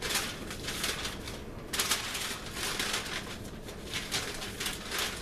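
Rustling and scraping of packaging as a boxed Funko Pop figure is turned over and handled, in a run of irregular swishes of varying length.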